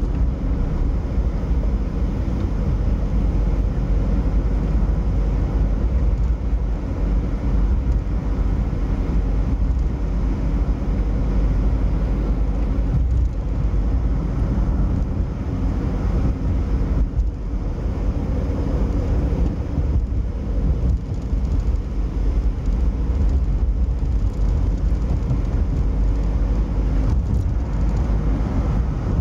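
Steady road and engine noise inside a moving car's cabin, a low rumble with no distinct events.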